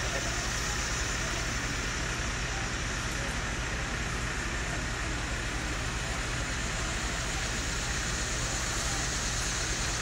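An engine running steadily at an even speed: a low hum under a constant hiss, with no revving.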